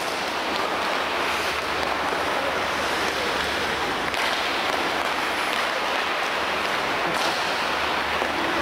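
Steady, even hiss of an indoor ice-rink hall during hockey practice.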